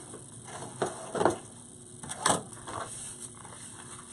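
Craft materials being moved about and set down on a work table: three short knocks and rustles within the first two and a half seconds, with fainter handling ticks after them.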